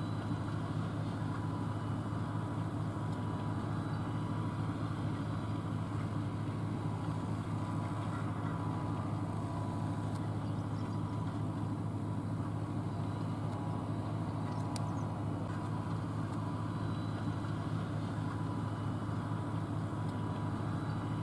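Vehicle engine running steadily, a low even drone heard from inside the car's cabin.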